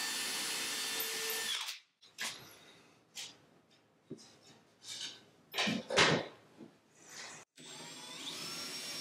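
Makita cordless drill boring pilot holes into the wooden bottom of a cabinet. It runs with a steady whine for about two seconds and stops. A few knocks and handling bumps follow, and the drill starts again near the end.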